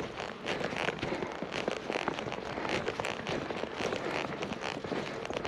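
Footsteps crunching through snow at a steady walking pace, about two steps a second, over dense crackling.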